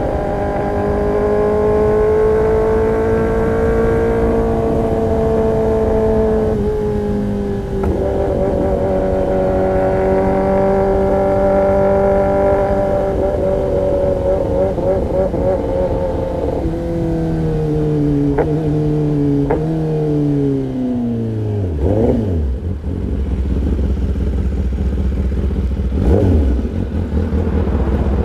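Kawasaki ZX-10R inline-four through an Arrow Pro-Race exhaust, held at high revs with the pitch drifting a little and one small drop about six seconds in. About 17 s in the revs step down in stages with two short blips, falling to a low steady idle about 22 s in, with one brief rev about 26 s in.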